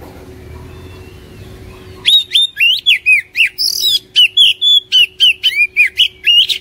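Oriental magpie-robin singing: about two seconds in, a loud, rapid run of sharp whistled notes, many of them dropping in pitch, about four a second, that stops suddenly. This is the full-voiced 'gacor' song used as a lure recording to set other magpie-robins singing.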